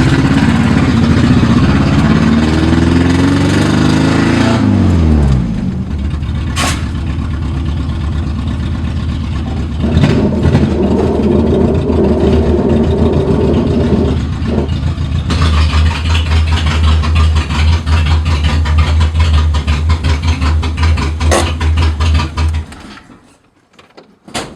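A car engine with a very loud exhaust. Its pitch drops over the first few seconds, then it runs on with a couple of swells in revs before it stops abruptly near the end. It is loud enough that it sounds like a rotary.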